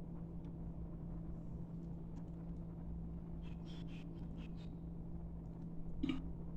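Steady low electrical hum of room tone, with faint light clicks and rustles of filling being spread by hand between about three and a half and four and a half seconds in, and a soft knock about six seconds in.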